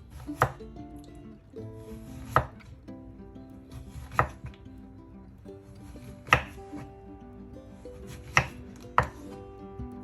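Knife slicing through a peeled zucchini, six sharp chopping knocks about two seconds apart, the last two in quick succession near the end, with soft background music underneath.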